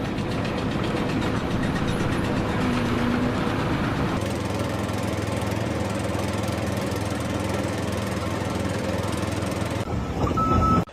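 An engine or motor running steadily. The sound changes abruptly about four seconds in and again shortly before the end, then cuts off suddenly.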